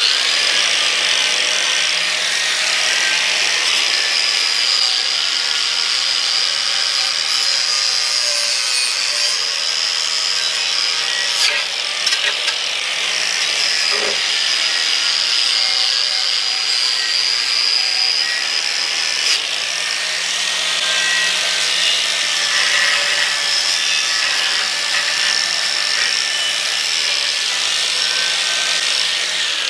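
Angle grinder running steadily under load, its disc grinding along the edge of a sheet-metal cover: a loud rasping grind with a high whine over it, and a few brief knocks as the disc catches the metal.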